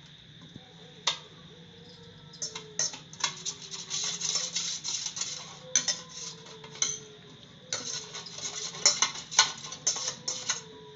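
Metal utensils clinking and scraping against a metal vessel in irregular bursts of quick clicks, over a steady low hum.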